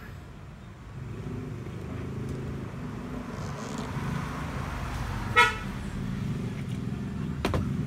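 A motor vehicle's engine running, with one brief horn toot about five seconds in, the loudest sound.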